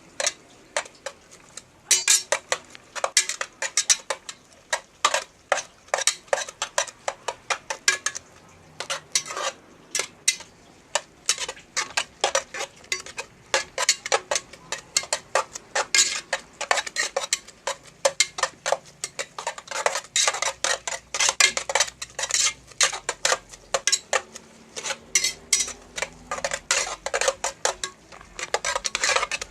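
A cooking utensil stirring okra in a pan, clinking and scraping against the pan over and over, several irregular strikes a second.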